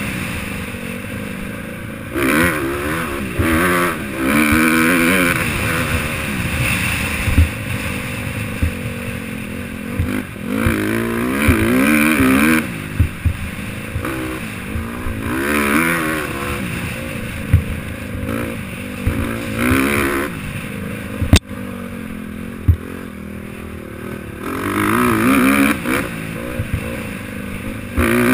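Honda CRF150R four-stroke single-cylinder dirt bike engine revving up and easing off over and over through the gears on a rough trail. Short knocks come from the bike hitting bumps, with one sharp crack about three quarters of the way through.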